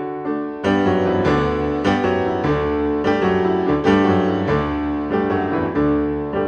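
Background piano music, growing fuller about half a second in, with notes struck at an even, unhurried pace.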